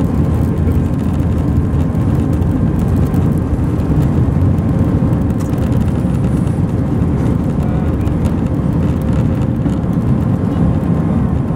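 Cabin noise of an Airbus A319 with CFM56 jet engines: a loud, steady rumble with a faint steady hum above it, unchanging throughout.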